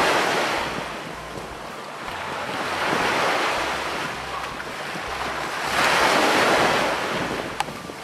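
Small sea waves breaking and washing in shallow surf, swelling and fading about three times, with wind rumbling on the microphone.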